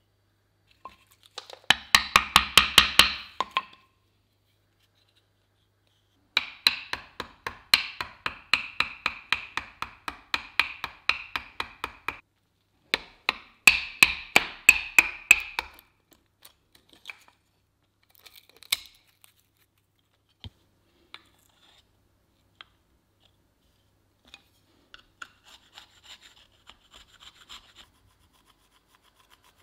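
A knife scraping and shaving dry oak in quick, even strokes, about four or five a second, in three spells. Only a few light taps and scratches follow.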